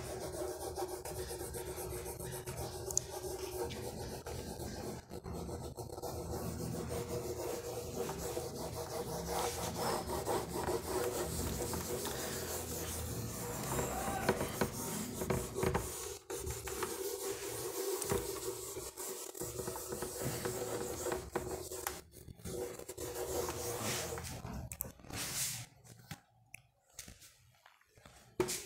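Sponge eraser rubbing across a whiteboard, wiping off marker writing in continuous strokes. After about sixteen seconds the wiping comes in shorter spells with brief pauses, and it dies away near the end.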